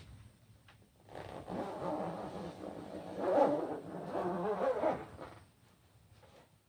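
A passing motor vehicle's engine, rising and falling in pitch for about four seconds, loudest in the middle, then fading away.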